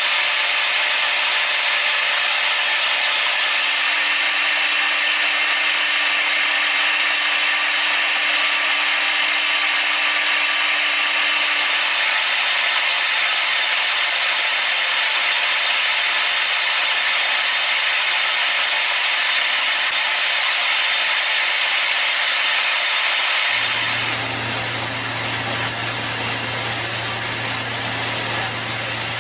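Machine-shop machining noise, likely a CNC machine tool cutting metal: a steady grinding hiss with faint steady whining tones. About 23 seconds in it cuts abruptly to a different steady machine hum with a low drone.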